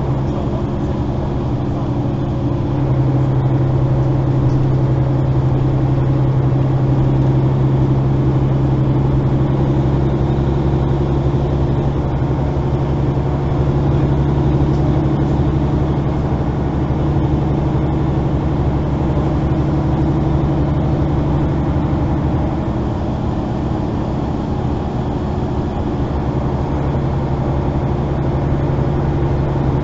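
Mercedes-Benz O530 Citaro facelift articulated bus heard from inside while under way: a steady engine drone with road noise, the engine note rising slightly a few seconds in and easing a little later.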